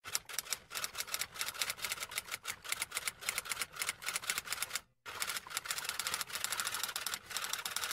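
Typewriter typing sound effect: a fast, steady run of key clacks with a brief break about five seconds in.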